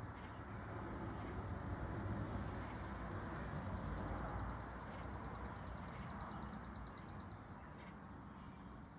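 Outdoor ambience: a steady rushing background with a low rumble. Over it, a small bird sings a high, rapid trill that starts about a second and a half in and stops abruptly after about six seconds.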